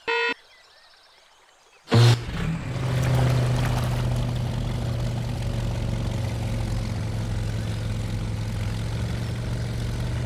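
A cartoon jeep's horn gives one short beep. After a pause of near silence, about two seconds in, a sudden burst starts the vehicle's motor, which then runs as a steady low drone while the jeep, fitted with a float ring, crosses the river.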